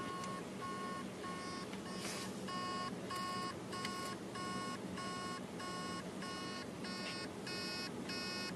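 Hard drive beeping in short, high pulses about twice a second as its spindle motor tries and fails to spin up the platters. The speaker says this is most likely because the heads are stuck on a platter, though a seized spindle bearing gives the same noise.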